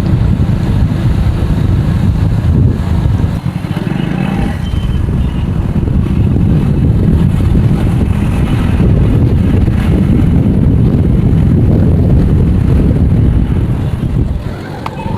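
A motor vehicle running on the move, with a loud, uneven low rumble throughout, much like wind buffeting the microphone.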